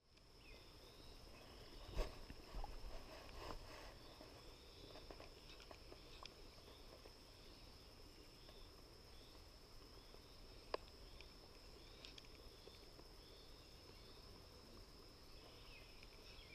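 Faint outdoor ambience: a steady high-pitched insect drone with short chirps repeating about once a second. A few sharp clicks and taps come through it, the loudest about two seconds in and another near eleven seconds.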